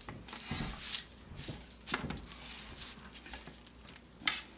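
Metal offset spatula scraping and patting macaroni and cheese across parchment paper on a baking sheet: irregular soft scrapes and taps, with one sharper click near the end.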